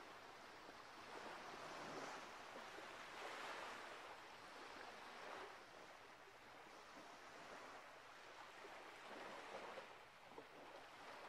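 Faint, even rushing noise that swells and fades gently every second or two, like distant surf or wind.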